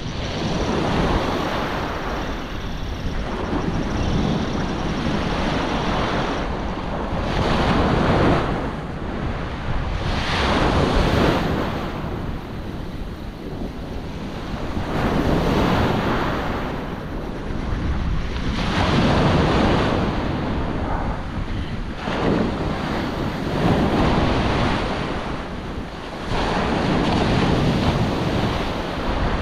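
Surf breaking and washing up the beach in surges every few seconds, with a stiff onshore wind buffeting the microphone.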